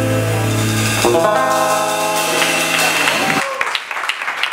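Small band of electric guitar, bass and drum kit holding its closing chords, which stop about three and a half seconds in; the audience then starts clapping.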